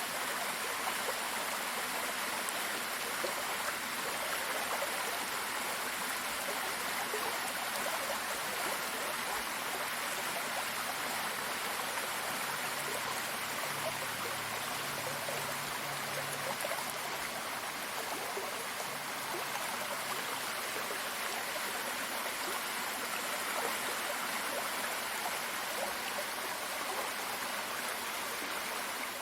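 Running water rushing steadily, like a stream or waterfall.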